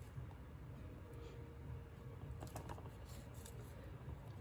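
A few light clicks and taps, bunched together past the middle, as a small canvas is handled and turned by gloved hands, over a steady low hum.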